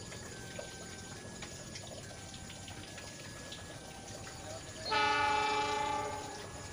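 Horn of a CC206 diesel-electric locomotive sounding one blast about five seconds in, a chord of several tones held for about a second and a half before fading.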